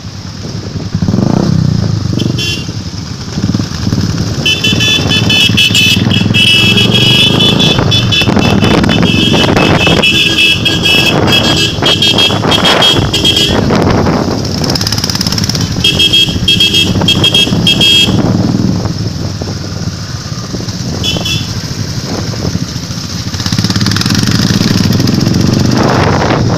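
Royal Enfield motorcycles riding in a group, engines running steadily, with long stretches of pulsing horn honking through the middle.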